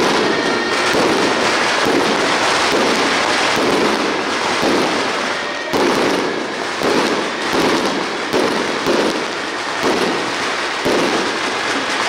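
Firecracker strings crackling densely, loud, with a pulsing swell about twice a second in the second half.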